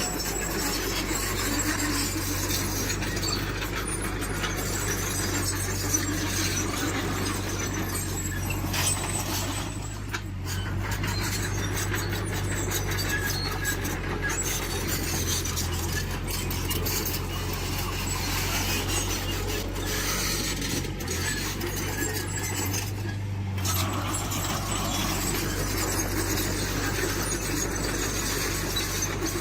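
Heavy earthmoving machinery working: a steady diesel engine hum with high metallic squealing over it.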